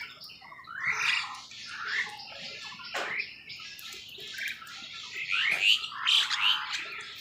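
Crows cawing: harsh calls repeated about once a second and overlapping one another, loudest about three-quarters of the way through.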